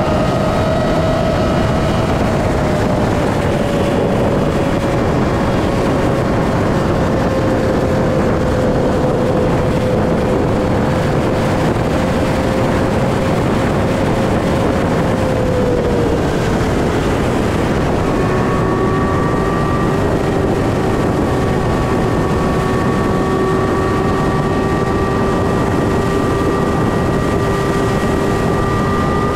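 Motorcycle under way at a steady speed: a heavy wind rush on the microphone over a steady engine tone. About two-thirds of the way through, the engine tone drops in pitch and holds lower.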